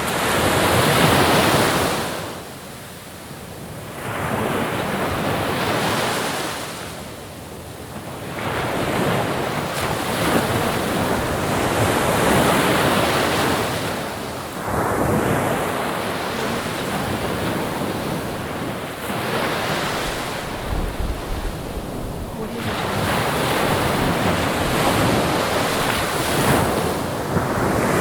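Sea waves breaking and washing on a shore. Each surge swells and falls back every few seconds.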